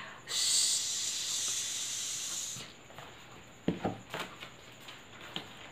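A woman hisses a long 'sss' through her teeth for about two and a half seconds, the letter S sound modelled as air escaping. A few faint clicks and rustles of handling follow.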